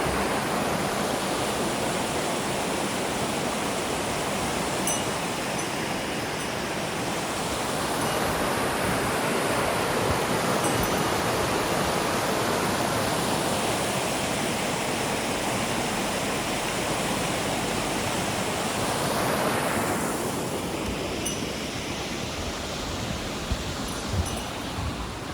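Mountain river water rushing, a steady loud noise of flowing water that eases somewhat about twenty seconds in.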